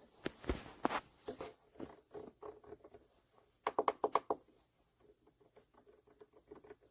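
Clicks and rustling of hands handling a 3D printer that will not power on. Scattered sharp clicks are followed a little before the middle by a quick run of about eight clicks.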